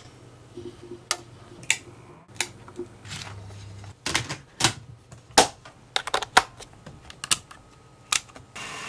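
Irregular sharp mechanical clicks and clacks from switches and from a Sony Walkman Professional WM-D6C cassette recorder being handled: its cassette door and buttons snapping, sometimes several clicks in quick succession.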